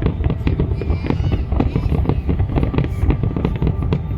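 New Year fireworks display: a dense, rapid barrage of overlapping bangs and crackles over a continuous low rumble.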